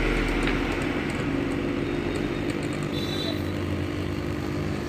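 Small mains-powered (220 V AC) submersible water pump running with a steady hum, switched on automatically by the irrigation controller because the soil-moisture sensor reads dry.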